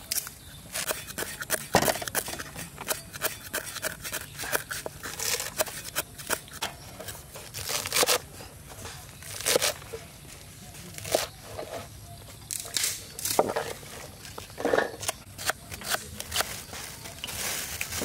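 Cleavers chopping crisp water spinach stems on wooden cutting boards: irregular sharp crunchy cuts.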